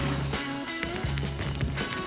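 Background music with a repeating bass line.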